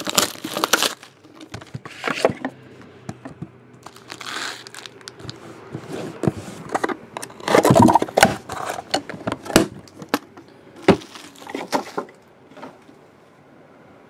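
Plastic shrink wrap crinkling and tearing as it is stripped from a sealed trading-card box, then the box lid lifted and its contents handled, with irregular rustles and small knocks. The loudest burst of handling comes a little past the middle.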